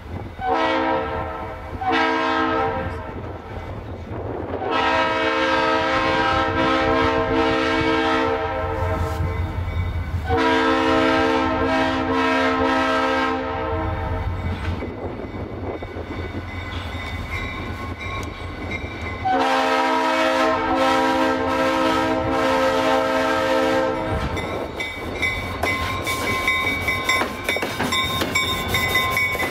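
Norfolk Southern GP38-2 diesel locomotive's air horn sounding a chord in a series of blasts as the train approaches: two short blasts, then three long ones with pauses between them. After the last blast the locomotives roll past close by, with engine rumble and wheels clattering over the rail joints.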